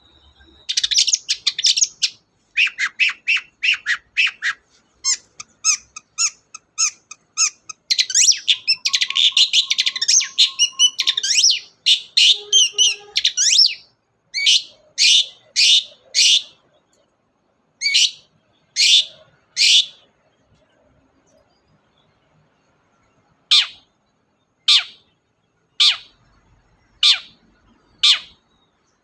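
Long-tailed shrike (cendet) in full song. For the first fourteen seconds or so it gives a fast, varied run of chattering notes. Then come loud, harsh calls that sweep downward, in short groups of three or four. After a pause of a few seconds, single harsh calls follow about once a second.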